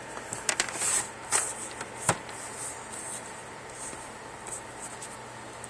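Quiet room tone with faint rustling and three short soft clicks or knocks in the first two seconds, the loudest about two seconds in.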